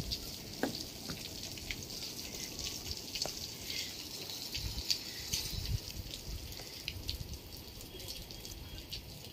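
Water spraying from a row of nozzles on a cleaning pipe along the top of solar panels and running down the glass: a steady hiss of spray with scattered drips and splashes.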